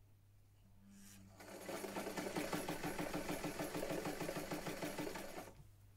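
Vintage Brother electric sewing machine starting with a brief motor hum, then stitching at a steady speed with a rapid, even mechanical ticking for about four seconds before stopping.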